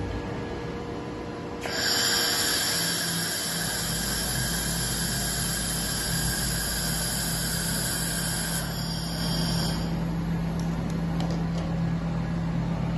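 Robot-held welding torch running a weld: a steady hiss with high whining tones starts suddenly about two seconds in and stops around ten seconds. A low steady hum comes in a little after the weld starts and carries on after it ends.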